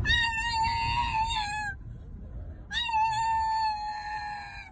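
Pug howling: two long, high, held howls, about a second apart.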